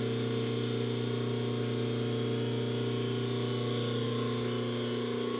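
1967 Rockwell 14-inch gear-head lathe running: a steady hum from its motor and headstock gears, which turn partly submerged in their oil bath and splash the oil up. The hum holds several constant tones throughout.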